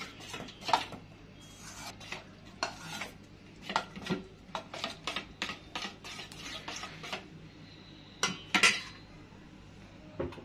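Metal spoon stirring yogurt and lemon juice in a stainless steel bowl, clinking and scraping against the sides in an irregular run of strokes. A louder clank comes about eight and a half seconds in.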